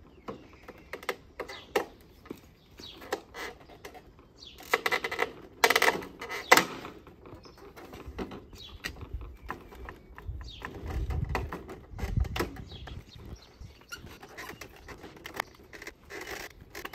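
A PVC fence rail being handled and fitted into the posts: light plastic knocks and taps throughout, with two loud pitched sounds about five and six seconds in.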